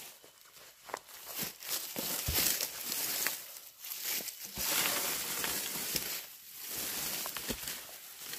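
Dry leaves and grass rustling and crunching in irregular bursts, with a few sharp snaps, as the forest floor is cleared by hand and trodden underfoot.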